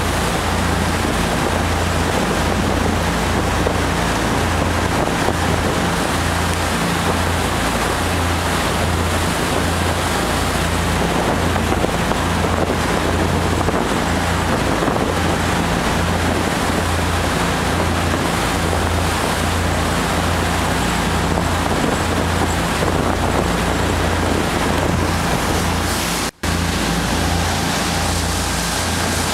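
Tour boat's engines running at cruising speed: a low, evenly throbbing drone under a steady rush of wind and water. The sound cuts out for an instant near the end.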